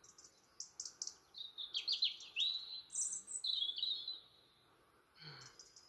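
A songbird singing: a run of high, thin notes and quick falling whistles for about four seconds, then a short call near the end.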